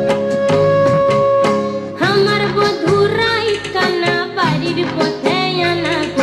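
Bengali folk song with drum accompaniment: a long held instrumental note over the beat, then a woman's singing voice comes in about two seconds in.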